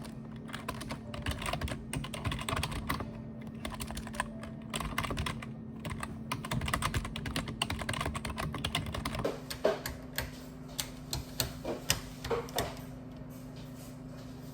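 Typing on a computer keyboard: dense, rapid keystroke clicks over a steady low hum. About two-thirds of the way through, the typing thins to fewer, sharper taps.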